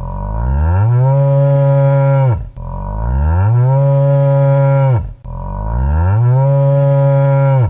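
A cow mooing three times, each moo a long, steady low call that rises at the start and drops away at the end, the three almost identical.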